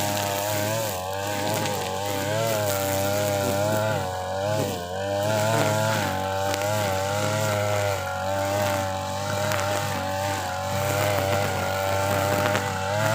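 TB43 two-stroke brush cutter engine running at full throttle with a trimmer head cutting thick grass. Its pitch dips briefly now and then and recovers as the load comes on.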